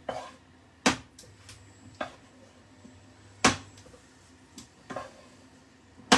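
Sharp knocks and clicks of kitchen utensils on cookware, about six at uneven intervals.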